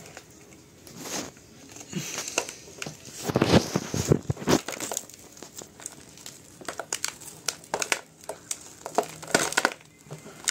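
Hands crumbling and loosening the dry potting soil and old roots of a succulent's root ball: irregular crackling rustles and scrapes, busiest a few seconds in.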